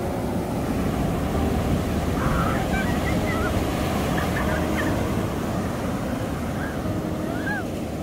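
Heavy surf breaking and washing up a sandy beach in a steady rush, with a few faint short high calls over it.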